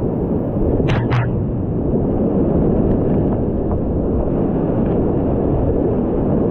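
High-water whitewater rapids of the South Platte River at 585 cfs rushing loudly close around a kayak. There are two sharp splashes about a second in.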